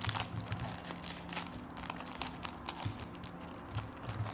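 A blind-bag toy wrapper crinkling and rustling in the hands as it is opened, with scattered small crackles and clicks.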